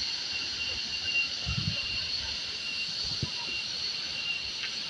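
Water pouring and splashing steadily from a spout below a waterfall, a constant hiss with a couple of short low thumps, around one and a half and three seconds in.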